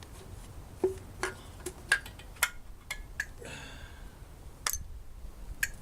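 Sharp metal clicks and clinks, about nine of them at irregular intervals, from connecting-rod caps and bearing shells being handled as the rods and pistons are pulled from a Honda D16Y8 block.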